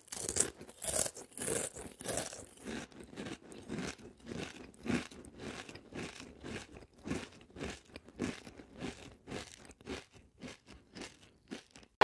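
A person chewing dry cereal: a steady run of crunches, about three a second.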